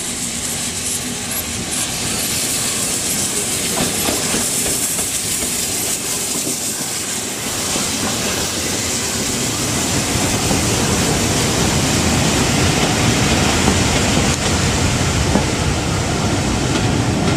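A1 Pacific steam locomotive 60163 Tornado coming in with a steady hiss of steam. It passes close about eight seconds in, and its coaches then roll by with a rumble and a clickety-clack of wheels over the rail joints, getting louder toward the end.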